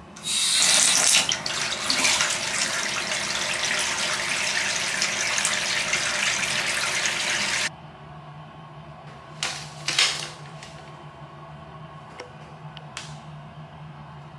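Bath tap running into a bathtub, a loud steady rush of water that stops abruptly about eight seconds in. After that a steady low hum remains, with two brief crinkles close together from a foil bath-salt sachet being handled.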